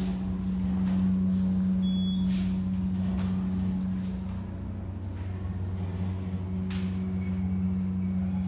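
Passenger elevator running as the car travels between floors: a steady low hum from its drive, with a few faint clicks.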